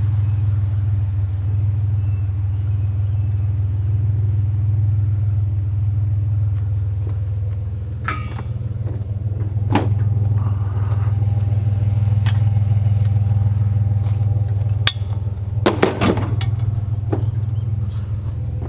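Truck engine idling steadily, with a few sharp clanks and knocks about halfway through and again later on.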